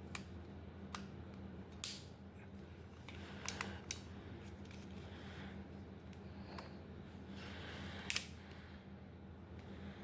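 Scattered sharp plastic clicks from handling a Tokyo Marui M1851 Navy air-cocking airsoft revolver, its loading lever and action being worked, about six clicks with the loudest near the end.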